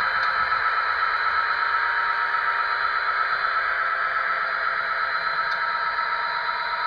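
Digitally sampled EMD F40PH diesel prime mover running steadily, played by a LokSound sound decoder through the small speaker of an HO scale model locomotive. It is an even engine drone with a thin high whine over it, and it has almost no deep bass.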